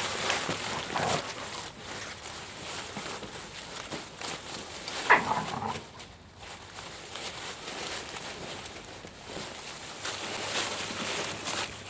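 Young briards scuffling in a pile of dry leaves and a collapsible fabric bin, the leaves rustling and crackling throughout. About five seconds in, one of the dogs gives a single short yelp.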